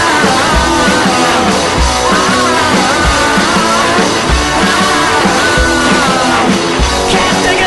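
Rock music with a sung melody over a steady drum beat.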